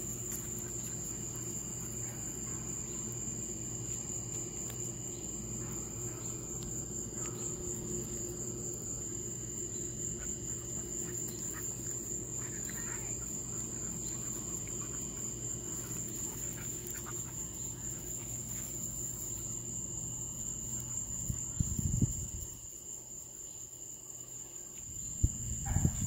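Night insects, crickets, trilling without a break in one high, even tone over a low steady hum. Two short, loud, muffled rumbles come near the end.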